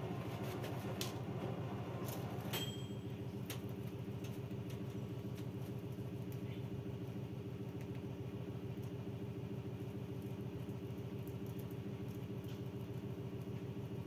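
Steady low machine hum, like a running fan or motor, even throughout. A few faint clicks and a short high peep come in the first few seconds.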